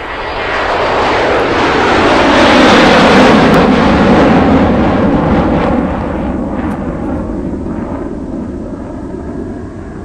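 Airliner on final approach passing low overhead: the engine noise swells to its loudest about three seconds in, falling in pitch as the plane goes over, then fades away.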